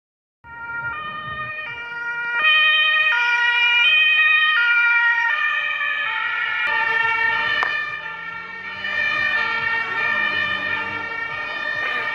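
German two-tone emergency-vehicle siren (Martinhorn) sounding, alternating between a high and a low pitch about every three quarters of a second, growing louder about two seconds in. From about six seconds in the tones overlap as if a second horn were sounding out of step, and a vehicle engine rises in pitch about eight seconds in.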